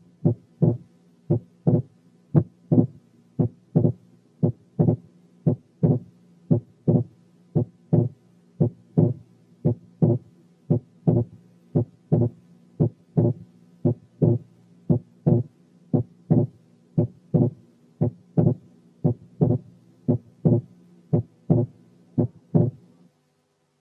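Recorded heart sounds played as an auscultation example: a regular lub-dub rhythm of first and second heart sounds, about one beat a second. The second sound is widely split, with wide but variable splitting of the kind heard in right bundle branch block.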